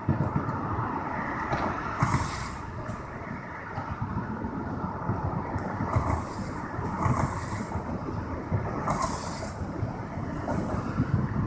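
A train running past close by: a steady rumble with short hissing squeals every second or two.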